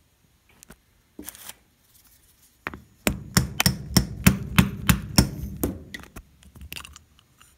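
A quick run of sharp knocks and taps on the metal body of a 1987 Yamaha Moto-4 350's carburetor, about four or five a second for some three seconds, as the float-bowl cover is worked off. A few light clicks come before and one after.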